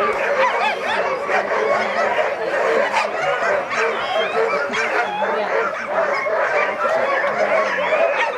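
A large yard of sled dogs barking, yipping and howling together in a continuous, dense chorus of overlapping calls.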